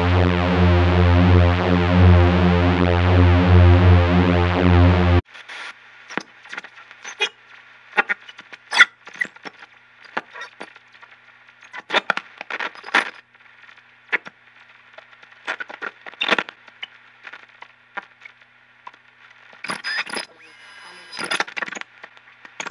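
A loud, distorted electronic buzz over a low hum cuts off suddenly about five seconds in. After that come sparse, irregular crackles and pops over a faint steady hum, a glitchy tape-static soundtrack.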